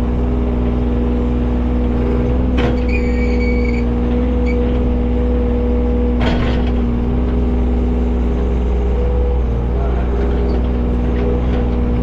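John Deere 35G mini excavator's diesel engine running at a steady speed. Two sharp knocks come about two and a half and six seconds in, with a brief high squeal just after the first.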